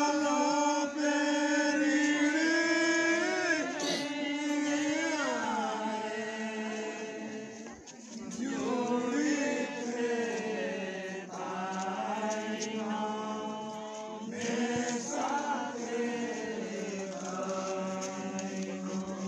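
Voices singing a slow, chant-like song in long held notes, unaccompanied by instruments.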